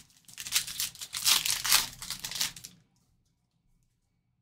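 A baseball card pack wrapper crinkling loudly as it is torn open, for about two and a half seconds, then stopping.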